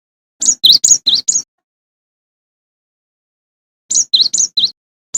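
Cinereous tit (gelatik batu) singing: a quick run of about five sharp, high two-part notes, a pause of about two seconds, then a second run of the same notes.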